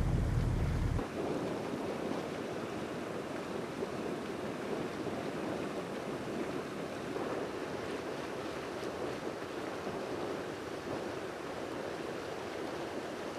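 Steady rush of sea water and wind, an even noise with no engine tone. A deep rumble drops out suddenly about a second in.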